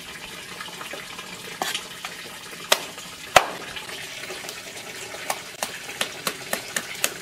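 Cleaver chopping a plucked duck into pieces on a wooden cutting board: a few separate chops in the first half, the loudest about three and a half seconds in, then a quicker run of chops, about three a second, near the end.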